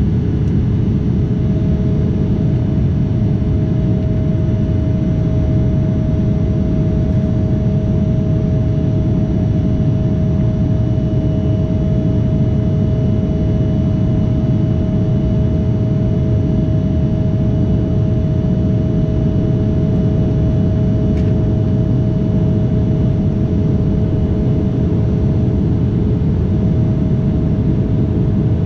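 Steady cabin noise of an Embraer 175 in its climb: a dense low rumble of the GE CF34 turbofan engines and the airflow over the fuselage, with a steady droning tone running through it.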